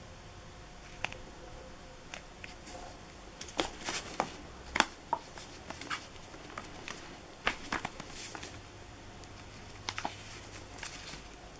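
Cardboard firework tubes being handled and moved about among other fireworks: a scattering of light knocks, taps and rustles, busiest in two clusters in the middle.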